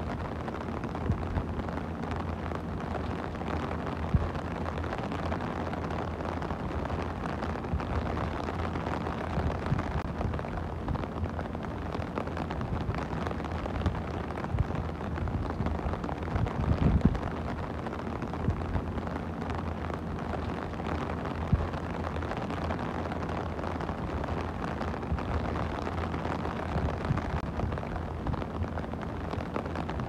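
Steady rain falling on a plastic umbrella canopy, with an occasional louder single hit standing out, the strongest about 17 seconds in.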